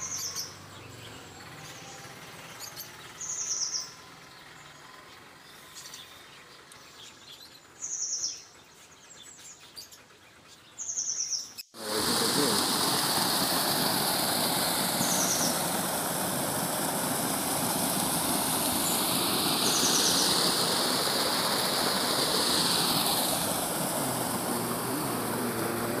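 White Java sparrows giving short high chirps, about one every few seconds, four in all. About twelve seconds in, a loud, steady rush of water pouring over a stone weir takes over, with two more brief chirps over it.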